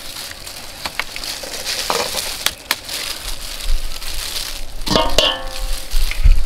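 Eggs cracked by hand over a stainless steel bowl of flour: a few sharp clicks and shell crunches. There is a brief pitched sound about five seconds in, and low rumbling thumps near the end.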